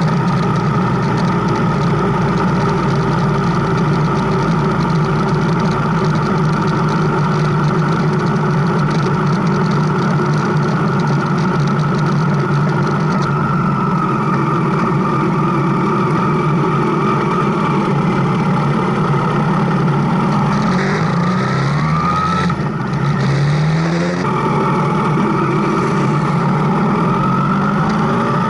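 Motorcycle engine running steadily under way. Its pitch rises several times in quick succession about three-quarters of the way through and again near the end, as it accelerates.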